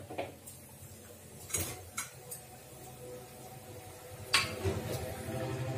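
Kitchen utensils clinking and knocking against pots and dishes: a handful of separate sharp clanks, the loudest a little past the middle.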